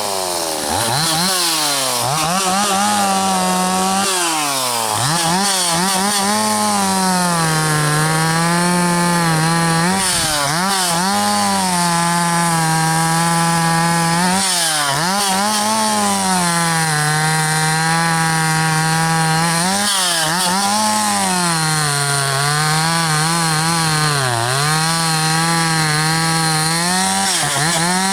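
Two-stroke chainsaw cutting wood at full throttle. The engine note pulls down under load in the cut and climbs back up each time the chain clears, many times over.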